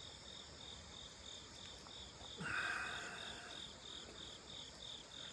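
Crickets chirping faintly in an even pulsing call, about four pulses a second. A brief louder sound comes in about two and a half seconds in.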